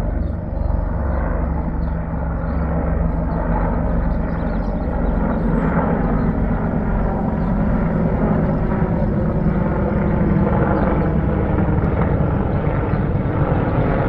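Several helicopters flying overhead: a steady, loud drone of rotors and engines that builds slightly as they pass.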